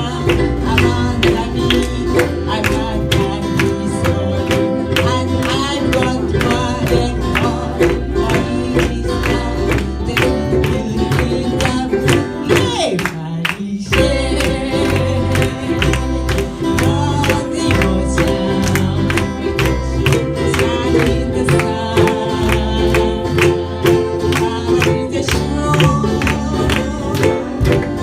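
Hawaiian-style band music: strummed guitars keeping a steady rhythm under group singing, with a brief lull about halfway through.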